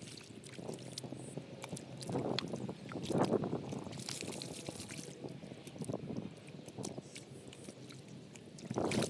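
Hands squelching and sloshing through wet mud and shallow muddy water, in irregular bursts, loudest about three seconds in and again near the end.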